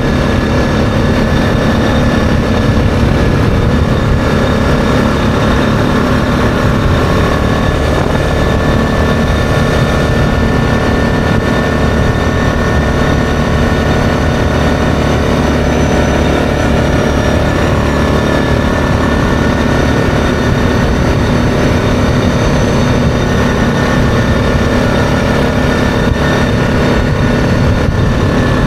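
ATV engine running steadily at cruising speed while riding along a gravel road.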